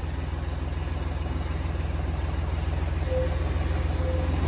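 Massey Ferguson tractor's diesel engine turning over and firing with a low, rapid chug as the tractor is push-started on a flat battery, growing gradually louder.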